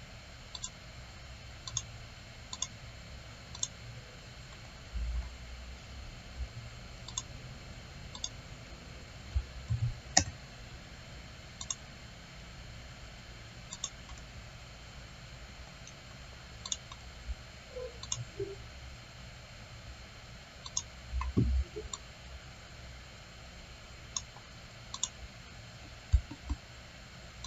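Computer mouse buttons clicking, single sharp clicks every second or two at irregular intervals, with a few soft low thumps between them.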